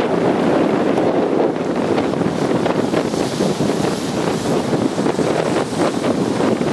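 Strong wind buffeting the microphone: a steady, loud rushing, with choppy lake water beneath it.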